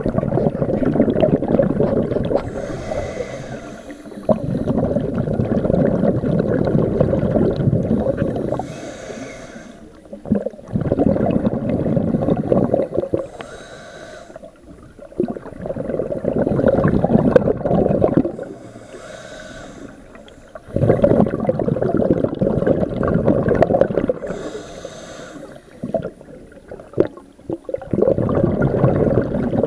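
Underwater scuba breathing through a regulator: about six breaths, each exhale a few seconds of low, rumbling bubbles, with a short, fainter hiss from the demand valve on each inhale in the gaps between.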